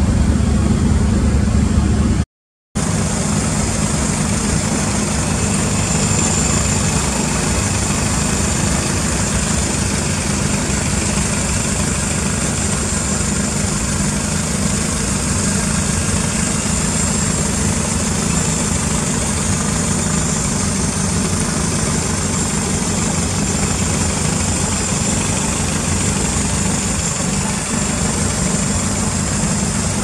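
Toyota MR2 (SW20) with a swapped-in 3S turbo 2.0-litre four-cylinder and an aftermarket exhaust, idling steadily with a constant high-pitched whine over it. It is heard first from the exhaust tips and then, after a short break about two seconds in, from the open engine bay.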